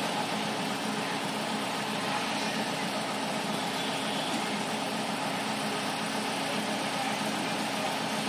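Heavy truck's diesel engine running steadily at low speed while it hauls a tracked mobile screening plant on a multi-axle low-bed trailer.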